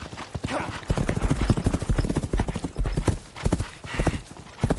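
Horses galloping, with a rapid, uneven run of hoofbeats throughout.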